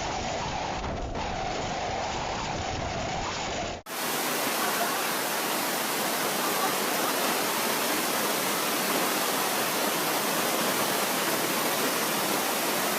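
Storm noise: a steady rush of wind and water, with heavy low rumble at first. About four seconds in it cuts briefly and turns into an even, hissing rush like driving rain or wind-blown spray.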